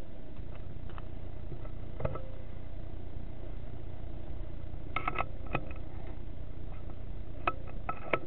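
Sharp metallic clicks of a .22 FX Wildcat air rifle having its magazine changed: one click about two seconds in, a cluster about five seconds in and more near the end, the loudest right at the end. Under them runs a steady low hum.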